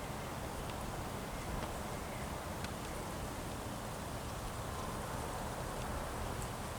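Steady outdoor background noise with a low rumble, broken by a few faint clicks.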